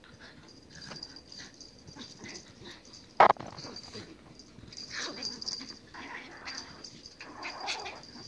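A Pomeranian and a puppy at play: one sharp bark about three seconds in, the loudest sound, among softer dog play noises.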